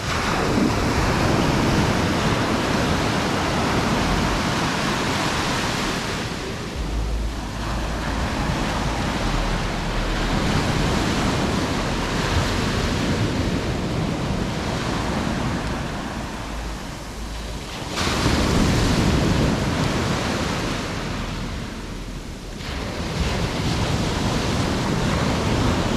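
Sea surf breaking and washing onto a sandy beach, swelling and easing every several seconds, with wind rumbling on the microphone.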